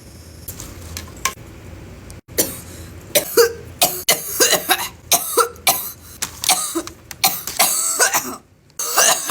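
A person coughing hard in a long fit: a rapid string of harsh coughs begins about two seconds in and runs for some six seconds, with one more cough near the end. It is the kind of coughing that follows a deep hit from a cannabis vape.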